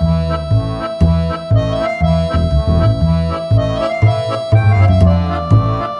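Background music: a long held melody note over a bass-and-chord rhythm of about two beats a second, the melody moving to a higher held note near the end.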